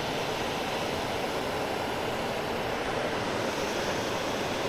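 Steady rushing of water pouring over a dam spillway, an even noise without breaks.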